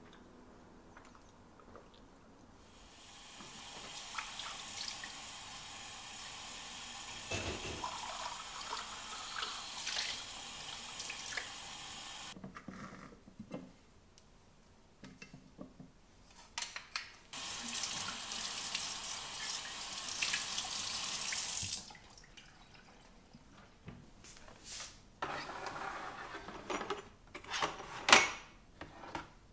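Water tap running into a sink in two spells of several seconds each, with short clinks and knocks between and after them, the loudest near the end.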